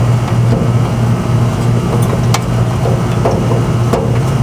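A steady low machine drone, with a few light clicks and rustles as wires are fed through the unit's wiring port.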